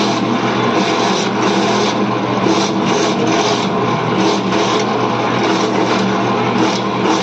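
Electric coconut grater running steadily, its motor humming while a coconut half is pressed against the spinning grating head, shredding the meat with a repeated scraping that swells and fades several times a second.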